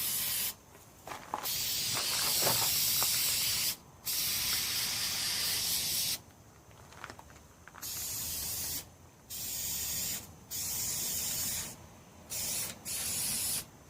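Aerosol spray can of truck bed coating hissing in repeated bursts as the nozzle is pressed and released: several long sprays, then shorter, weaker ones. It is an old can near the end of its life.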